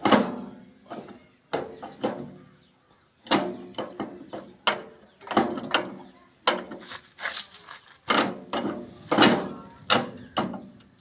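Irregular metal clanks and knocks, each with a short ring, from the rear brake parts of a Massey Ferguson 241 DI tractor being handled and fitted during a brake lining repair. The loudest strikes come at the very start and about nine seconds in.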